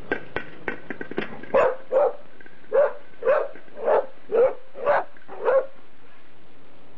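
A dog barking repeatedly, about eight barks roughly half a second apart, after a few sharp clicks in the first second.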